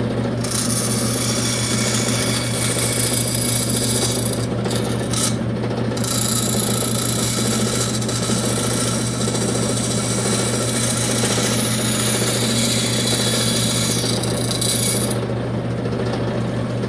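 An electric power tool's motor running with a steady hum while it rubs against wood with a scratchy, rasping sound. The rubbing drops out briefly about four and a half seconds in and again near the end, while the motor keeps running.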